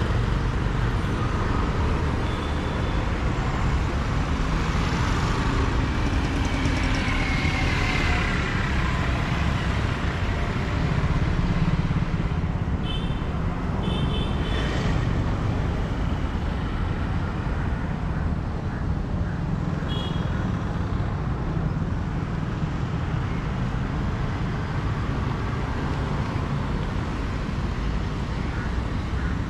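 Steady urban road traffic, vehicles running past on the street, with a few short high tones around the middle.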